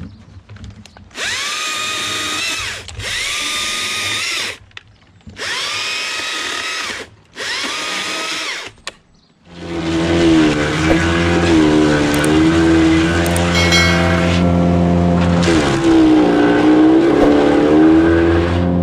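Stihl MSA 161 T battery top-handle chainsaw run in four short bursts, each spinning up, cutting through apple branches and winding down. Then a wood chipper takes over, running steadily, its pitch dipping twice as branches are fed in and chipped.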